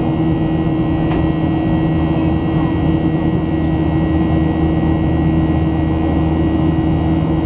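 Cabin noise inside a Boeing 737-800 climbing after take-off: the steady drone of its CFM56 jet engines and the airflow, with a few steady humming tones and a thin high whine.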